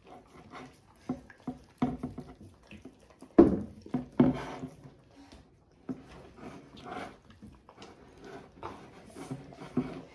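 Two dogs lapping and eating soup from bowls: wet licking and chewing with irregular clicks and knocks as their tongues and muzzles hit the bowls, the loudest knocks about three and a half and four seconds in.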